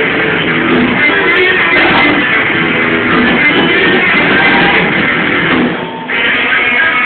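Rock band playing live, with loud electric guitar, as recorded on a phone in the audience. The music dips briefly in volume about six seconds in, then comes straight back.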